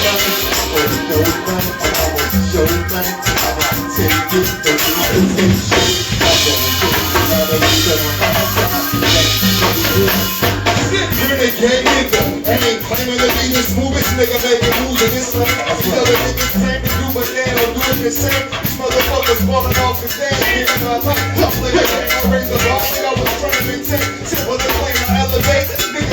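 Live band music with a steady beat, driven by percussion and a bass line.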